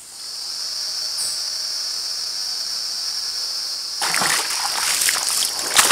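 A steady high-pitched buzz begins at the start, then from about four seconds in a person's legs wade and splash through shallow river water, the splashing loudest near the end.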